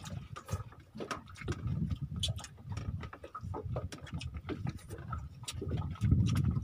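Scattered small clicks and taps of people eating grilled fish by hand from plastic bowls and plates, over a low, uneven rumble that grows louder near the end.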